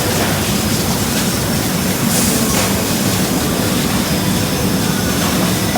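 Steady, loud machinery drone and hiss of a food-processing plant, with a brief louder hiss about two seconds in.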